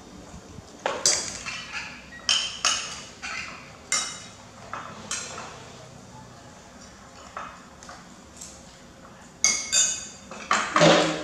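Metal spoons clinking and scraping against ceramic plates during a meal: scattered sharp, ringing clinks in clusters, a lull in the middle, and a louder clatter near the end.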